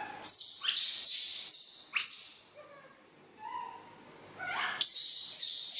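Young macaque crying: a run of shrill screams, each sweeping sharply upward in pitch, about five in quick succession, a fainter one midway, then several more near the end.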